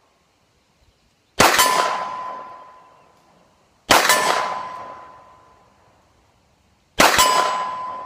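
Three shots from a SIG P250 Compact 9mm pistol, a few seconds apart, each followed a split second later by the clang of the bullet striking an AR-500 steel target. The plate rings with a steady tone that fades over about two seconds.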